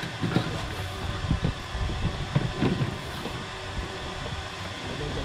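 A boat's engine running with a steady hum, under irregular low thumps and gusts.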